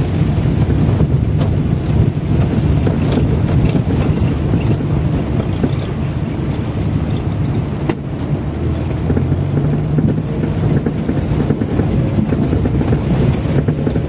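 Car driving slowly on a wet, muddy dirt road in the rain, heard from inside the cabin: a steady low engine hum with road and rain noise over it.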